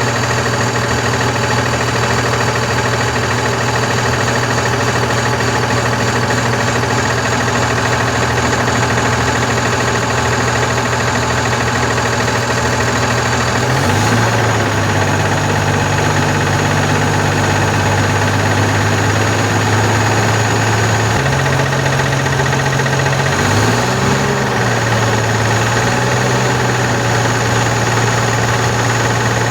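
Volkswagen Constellation 19.320 truck's freshly rebuilt diesel engine idling, its speed stepping up slightly about halfway through and again a little later before settling back. The engine has a knocking noise that the mechanics are checking.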